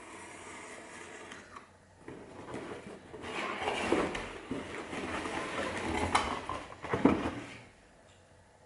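A scalpel cutting along a cardboard box, then the box being handled and opened: cardboard scraping and rustling, with a sharp click about six seconds in and a knock a second later.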